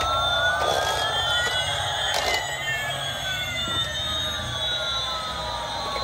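Electronic sound effect of battery-powered toy airliners: slow whining tones that glide up and down, one rising while another falls so they cross like a siren, over a steady whirr. A short knock about two seconds in.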